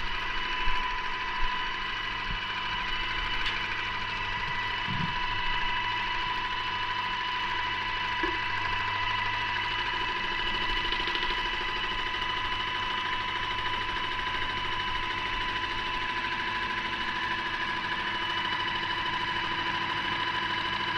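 Paint-spraying equipment motor running steadily, a constant high whine over a low hum, with a couple of light knocks about a second in.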